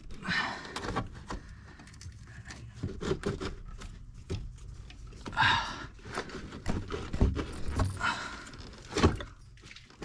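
A man breathing hard in a few heavy breaths while straining at work in a cramped space, over scattered clicks, knocks and scrapes of parts being pried and handled as the heater core is worked loose.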